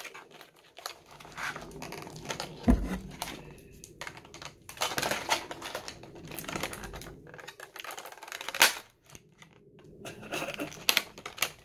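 Clear plastic packaging crinkling and snapping in irregular clicks and rustles as it is handled and cut open with scissors, with a low bump a few seconds in.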